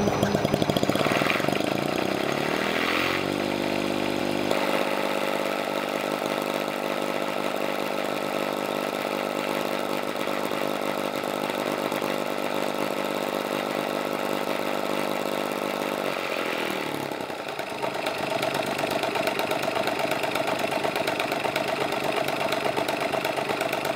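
See-through LiquidPiston rotary engine running on gasoline on a dyno. It rises in pitch over the first few seconds and then runs steadily. About two-thirds in, its pitch drops and it runs rougher, then it cuts off abruptly at the end.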